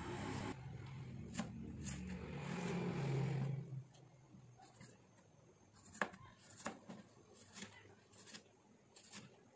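Chef's knife slicing through tomatoes onto a plastic cutting board: sharp knocks of the blade on the board, about one a second in the second half. A low steady hum runs underneath for the first few seconds and stops.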